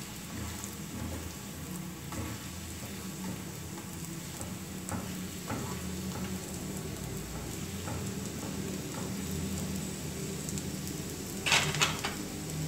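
Corn-flour and egg roti sizzling in oil in a nonstick frying pan while it is pressed down with a slotted spatula, with a few faint ticks. A brief louder noise comes near the end.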